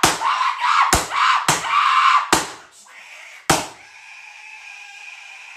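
A run of sharp bangs and thuds, five in about three and a half seconds, over loud screaming. After the last bang only a faint steady high tone is left.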